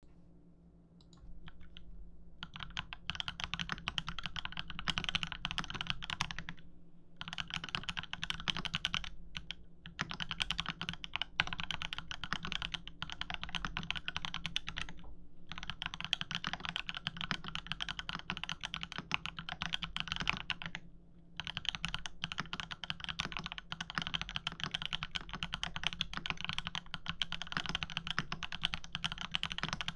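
Continuous typing on a KMG TKL mechanical keyboard with TTC Tiger switches, XMI keycaps and a sandblasted aluminium plate: a dense run of key clicks and clacks. It starts about two seconds in and breaks off briefly every few seconds.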